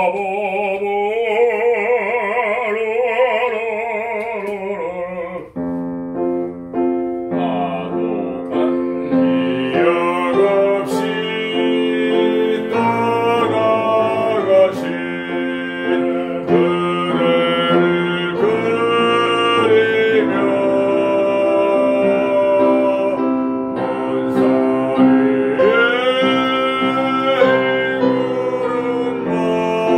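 A man singing a Korean art song in a classical, bel canto style with piano accompaniment. He holds a long note with wide vibrato for about five seconds, then the piano comes in with a steady chordal accompaniment under the continuing vocal line.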